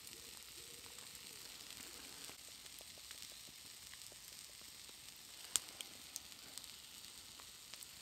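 Wood campfire burning with a steady faint hiss and a few sharp crackling pops, the loudest about five and a half seconds in.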